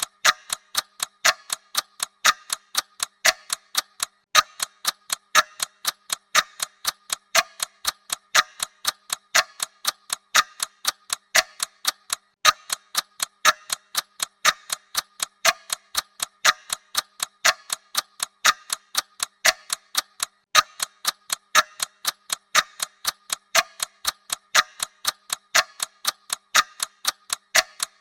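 Clock ticking sound effect: a steady, even tick-tock of sharp mechanical-clock ticks, about two a second.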